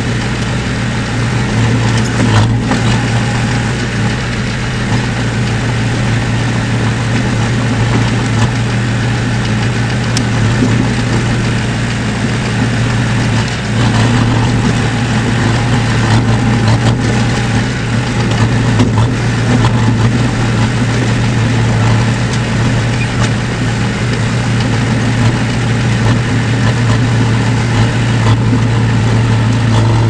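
Crawler dozer's diesel engine running steadily under load as the blade pushes dirt, heard from inside the cab, its pitch rising and falling slightly, with a few faint knocks.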